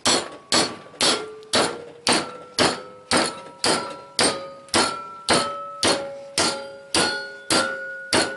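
Steady hammer blows, about two a second, on an aluminum hard drive platter clamped in a steel bench vise. Each blow rings with a metallic tone that creeps slightly higher as the platter is crushed.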